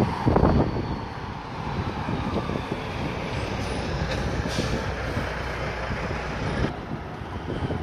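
Steady city traffic rumble, with wind buffeting the microphone in a few gusts in the first half-second.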